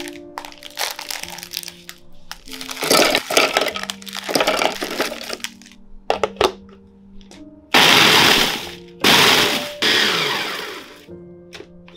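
Plastic Oreo wrappers crinkling and crackling as the packets are handled and torn open, then a few clicks as the blender jug is closed. An electric blender then runs in two bursts of a second or two each, grinding Oreo cookies into crumbs.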